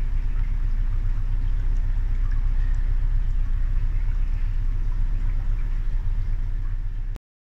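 Narrowboat's engine running steadily with a low, even drone while the boat moves through a brick canal tunnel. The sound cuts off suddenly near the end.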